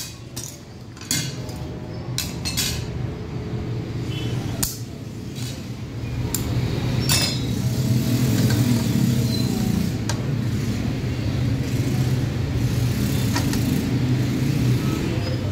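Thin 2 mm cut glass disc clinking and tapping a few times as it is handled and set onto a wall clock, over a steady low hum that grows louder about six seconds in.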